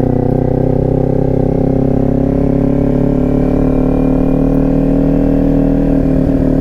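Kawasaki Ninja 400's parallel-twin engine running steadily under the rider at low road speed, its pitch rising slowly as the bike gathers a little speed.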